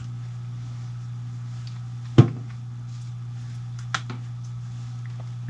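Bolt of a Bergara B14 bolt-action rifle being put back into the action: one sharp metallic click about two seconds in and a fainter click a couple of seconds later, over a steady low hum.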